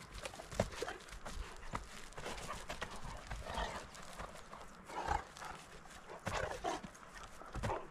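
A miniature horse and a Rhodesian Ridgeback play-fighting on grass: irregular scuffles and thuds of hooves and paws on the turf, in uneven bursts.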